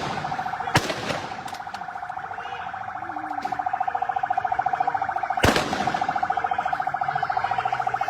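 A siren or alarm sounding one steady, rapidly pulsing tone, cut by a string of sharp cracks of gunfire, the loudest just under a second in and about five and a half seconds in.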